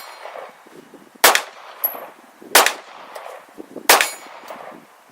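Semi-automatic pistol fired three times, a shot roughly every second and a quarter, each a sharp crack with a short echo, with faint clinks between the shots.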